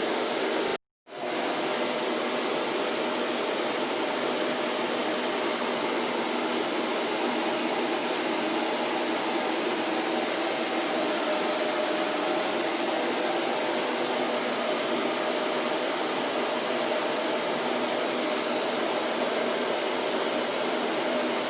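Vacuum cleaner motor running with a steady, even whoosh. It cuts out completely for a split second about a second in, then resumes at the same level.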